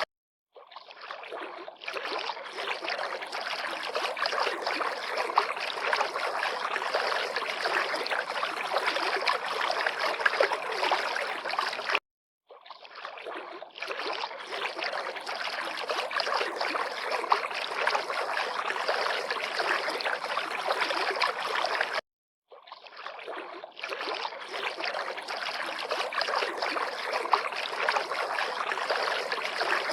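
River water lapping and flowing, a steady splashing rush. It cuts to silence for about half a second three times, near the start, about 12 seconds in and about 22 seconds in, and fades back in each time.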